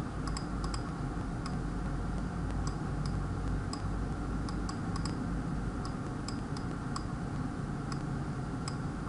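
Light, irregular clicks of a computer mouse, a few a second, over a steady low hum.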